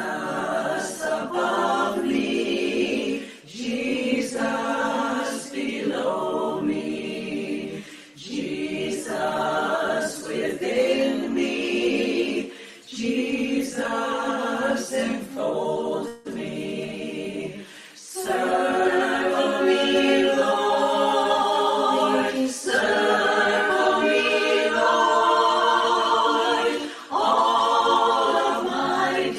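A choir singing unaccompanied, in phrases with short breaks between them, the singing growing fuller and more continuous a little past halfway.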